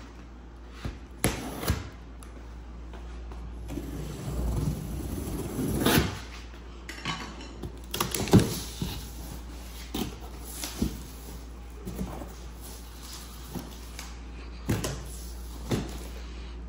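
Large cardboard carton being opened by hand: scattered knocks, scrapes and rustles of cardboard flaps and packing tape, with a longer rustling stretch about four to six seconds in and a few sharper knocks later on.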